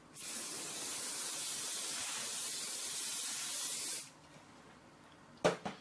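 Aerosol can of extra-fine hairspray spraying in one continuous hiss of about four seconds that cuts off sharply. A short knock follows near the end.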